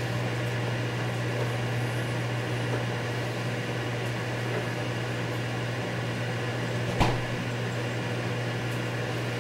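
Microwave oven running while it heats a cup of water: a steady low hum with fan noise. A single sharp click comes about seven seconds in.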